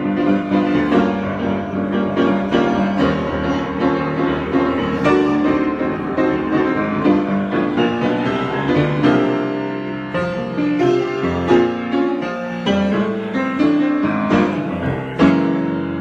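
Piano improvisation: a continuous flow of chords and notes, with a strongly struck chord just after the fifteenth second.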